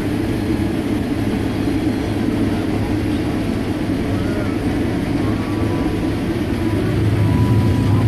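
Combine harvester harvesting corn, heard from inside the cab: a steady low drone of the engine and machinery.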